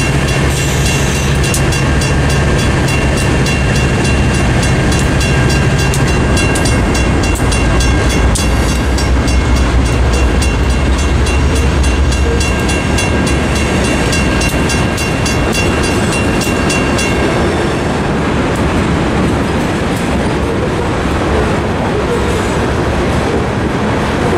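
Federal Signal mechanical crossing bell ringing steadily over the engine of a GE B39-8 diesel locomotive. The engine fades as the locomotive moves off, and the bell stops about two-thirds of the way in, leaving a steady rumble of rail traffic.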